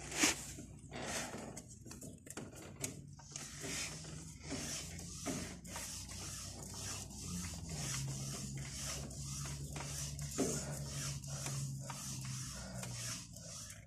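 Fingers rubbing and scraping on the piston crown and cylinder bore of an engine block with the head removed, an irregular scuffing of skin on metal. A low steady hum runs underneath, stronger in the second half.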